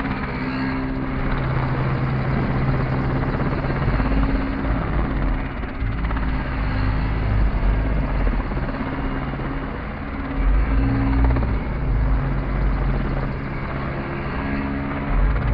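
Radio-controlled helicopter flying a 3D aerobatic display, its rotor and drive giving a steady tone that steps up and down in pitch as it manoeuvres, with repeated surges of low rumble.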